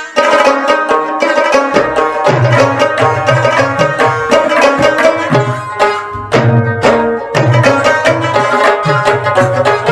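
Background music with hand drums and a melody; a bass line comes in about two seconds in.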